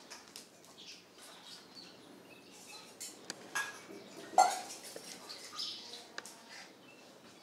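Scattered light clicks and small knocks with faint bird-like chirps, and one sharper knock about four and a half seconds in.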